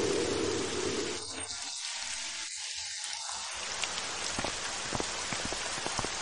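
Rain falling: a steady hiss with a fuller low rush for about the first second, then separate drops ticking from about four seconds in.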